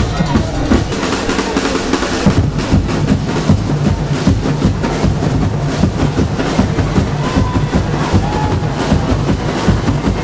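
Carnival percussion band playing a steady, driving drum rhythm with deep bass drums.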